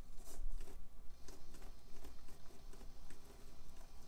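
Traxxas TRX-4M 1/18 rock crawler inching up a rock at low speed: scattered small clicks and scratches of its tyres and drivetrain working on the rock surface over a faint low hum, the loudest cluster about a third of a second in.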